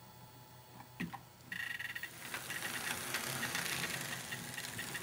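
HO-scale model locomotive running on sectional track: a small electric motor whirring, with light rhythmic ticking from the wheels over the rail joints. It grows louder about a second and a half in.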